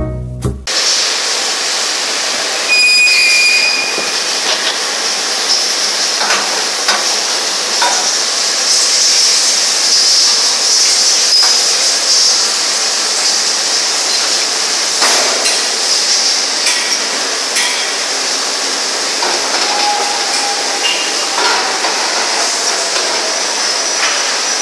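Steady hissing machine noise with scattered metal clanks and knocks from an electro-pneumatic roller-conveyor line moving a cast-iron engine block through its lift, turntable and pusher. A short high whine sounds near the start.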